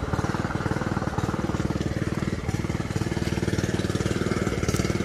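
Small engine driving a water pump that is draining a pond, running steadily at constant speed with a fast, even firing rhythm.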